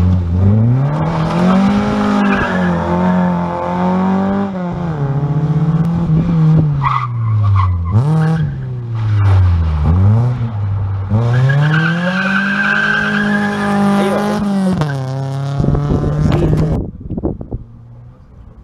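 Rally cars, a Ford Escort Mk2 and then a Toyota Celica, driven hard past on a gravel road one after the other, engines revving up, holding and dropping again and again through gear changes and lifts. The engine sound cuts off suddenly near the end, leaving a much quieter background.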